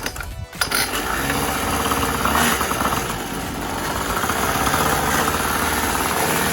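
Pocket bike's small engine starts up about half a second in and keeps running, the revs rising briefly around two seconds in before it settles into a steady run.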